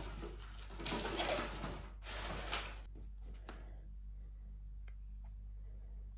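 Handling noise as the smartphone is lifted and held: rustling and rubbing with a few louder swells, fading out after about three and a half seconds to a few faint taps, over a steady low hum.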